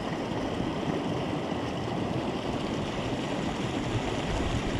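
Small mountain stream cascading over a rock ledge into a pool: a steady, close rush of water.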